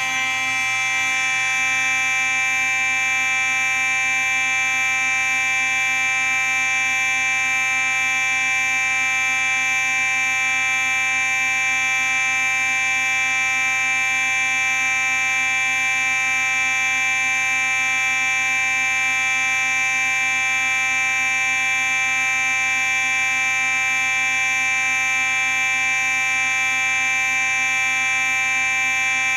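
Simplex 4903-9838 fire alarm sounding one steady, harsh, buzzy tone continuously, with no pauses or pulsing.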